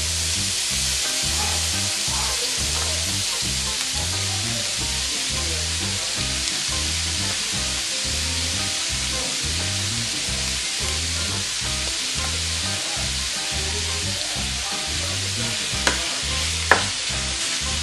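Raw ground beef sizzling steadily as it fries in a hot oiled pan with onions. Near the end a spatula knocks twice against the pan.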